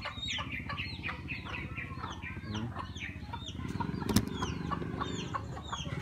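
Domestic chicks peeping in a stream of short, falling cheeps while a hen clucks low, her clucking growing stronger from about halfway through. One sharp knock sounds a little after the middle.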